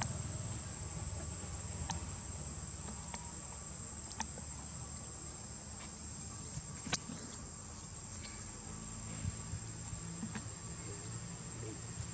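Insects droning with one steady high-pitched whine, joined by a few small sharp clicks, the loudest about seven seconds in.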